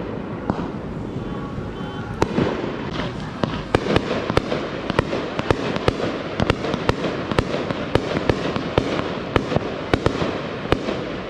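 Fireworks going off: an irregular run of sharp pops and bangs, several a second, that thickens about two seconds in.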